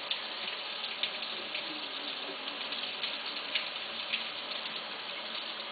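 Water running steadily from a tap into a sink, with a few small splashes and drips as a pet monkey is washed in it.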